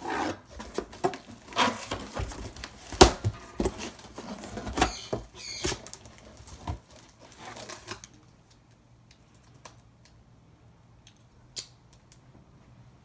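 Cardboard box flaps being pulled open and handled, scraping and rustling, with the clear plastic wrap around the item inside crinkling and a sharp knock about three seconds in. The handling stops after about eight seconds, leaving only a couple of faint ticks.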